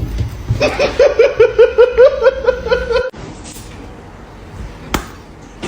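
A person laughing in a quick, even run of about five 'ha's a second, cut off abruptly about three seconds in; after that it is quieter, with one sharp click near the end.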